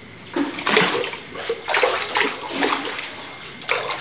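Fish splashing at the surface of a cement fish tank: a run of irregular splashes starting under a second in.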